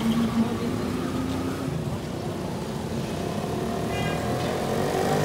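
Motor vehicle engines running in street traffic, a steady rumble throughout, with a pitched engine note over it in the last couple of seconds.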